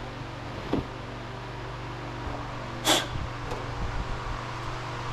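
Steady low mechanical hum, with a faint knock under a second in and one short, sharp hissing burst about three seconds in.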